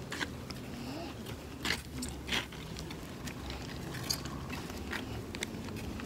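Walking and handling noise picked up by a handheld phone: scattered crunches and a few sharp clicks over a low steady rumble, the loudest knocks a little under two seconds in and again just after.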